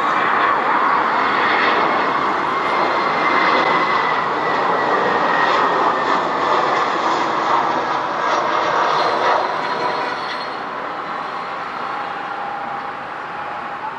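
Airbus A319 jet engines on landing approach: a loud steady jet roar with a whine that slides down in pitch as the aircraft passes, growing quieter about ten seconds in as it settles onto the runway.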